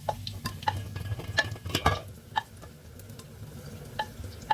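Chicken pieces cooking in a frying pan, with irregular light clicks and taps as they are stirred.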